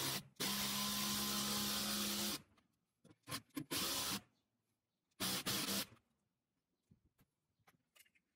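Milwaukee cordless power tool with a long socket extension driving a 3/8-inch lag bolt through an aluminum angle base plate. It runs steadily for about two and a half seconds with a short break near the start, then comes in two shorter bursts as the bolt is snugged down, and ends with a few faint clicks.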